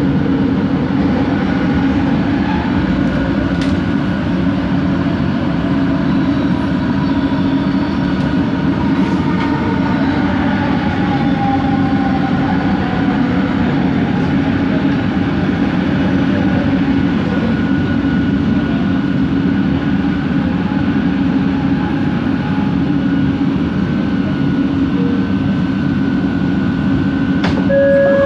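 Cabin noise of an original Kelana Jaya Line Bombardier ART train running between stations: a steady rumble with the faint whine of its linear induction motors. A short tone sounds right at the end.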